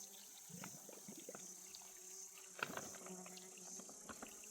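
A flying insect buzzing with a low hum that comes and goes, over a steady high-pitched background hiss, with a few light clicks.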